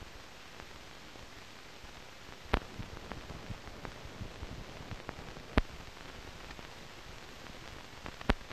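Steady hiss and crackle of a 1930s optical film soundtrack with no programme sound, broken by three sharp clicks about three seconds apart and a few fainter ticks.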